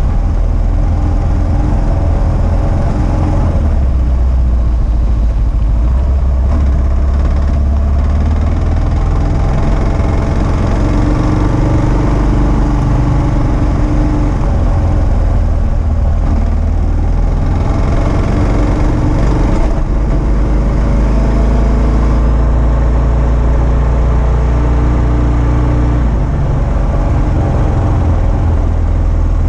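2022 Kawasaki KLR650's single-cylinder engine running under way on a gravel road, its note stepping up and down a little several times as the throttle and gears change.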